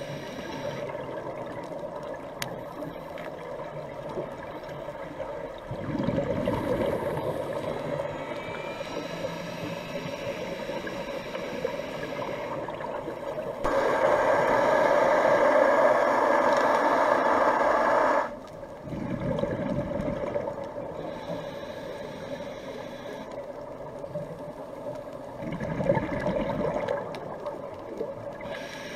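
Underwater sound of a scuba diver's regulator breathing, heard through an underwater camera: rushes of bubbles every several seconds, the longest and loudest lasting about four seconds near the middle, over a steady low hum.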